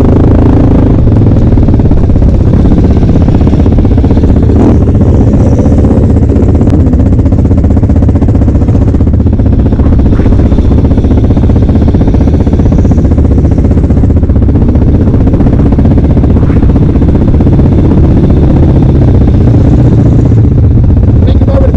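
Off-road vehicle engines running steadily.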